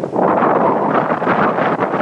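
Strong hurricane wind buffeting the microphone, a loud rushing roar that swells a moment in and holds.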